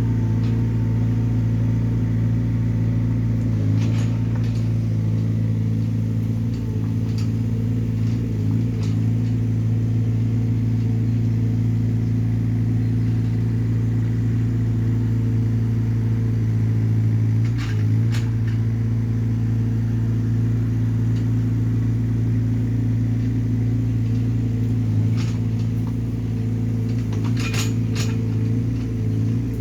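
Small Hyundai excavator's diesel engine running at a steady speed, with a few short clanks and knocks scattered through it.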